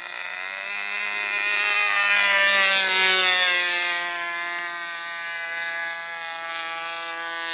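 Glow-fuel engine of a radio-controlled model airplane running in flight, a buzzing whine that swells to its loudest about two to three seconds in while its pitch slides steadily down, then eases off as the plane passes.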